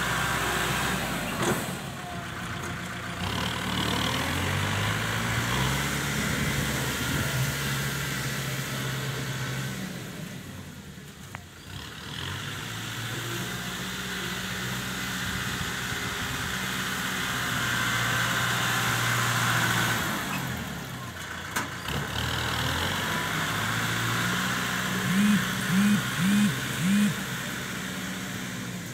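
Kubota tractor's diesel engine running as its front blade pushes and levels soil, engine speed rising and falling and easing off twice. Near the end, four short loud sounds about half a second apart.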